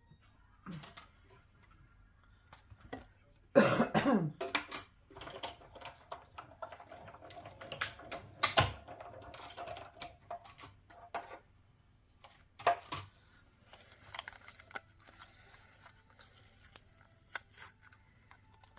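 Hand-cranked die-cutting machine running die-cut sandwiches through, with a steady creaking hum from the rollers for several seconds and scattered clicks and knocks of plates being handled. There is a short, loud cough-like sound about four seconds in.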